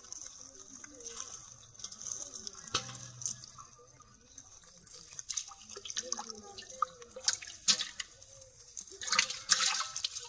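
Wet clicks, drips and patters of hands working small fish out of a wet fishing net on a tarp, irregular throughout, with a louder flurry about nine seconds in.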